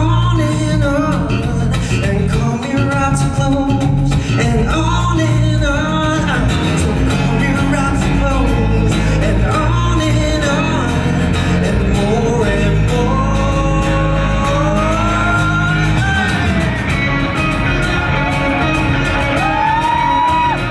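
Live band playing a rock song with a lead vocal: sung melody lines, some long held notes, over a steady backing of drums and bass.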